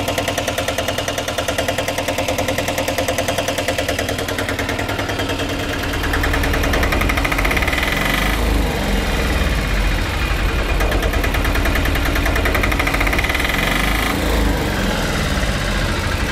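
Single-cylinder diesel engine of a Piaggio Ape Classic 400 running steadily with a fast, even knock. About six seconds in it becomes louder and heavier.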